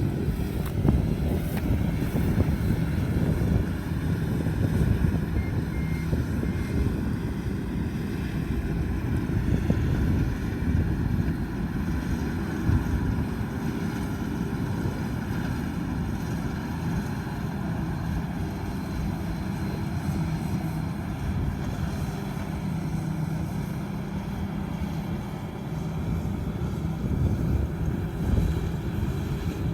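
Combine harvester running steadily, a dense low engine and machinery noise with no breaks.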